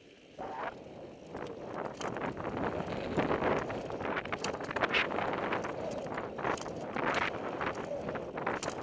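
Mountain bike rattling and clattering down a rough dirt trail: many short knocks over steady tyre and wind noise. Quieter for about the first second, then a busier clatter.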